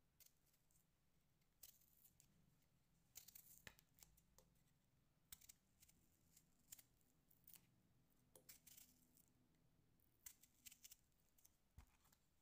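Knife peeling the dry, papery skin off a whole onion: faint, irregular crackling and tearing. Near the end the knife starts slicing the onion on a wooden cutting board, with a soft knock on the board.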